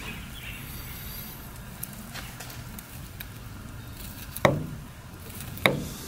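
Knife slicing raw beef into thin strips on a wooden cutting board, with two sharp knocks of the blade against the board about a second apart near the end, over a low steady background rumble.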